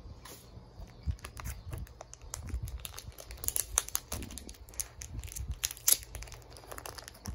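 Thin clear plastic wrapping around a Pokémon card crinkling as fingers pick and peel it open: a run of irregular small crackles and clicks, busiest in the middle.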